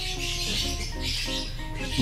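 Background music: a light melody of short, evenly stepping notes.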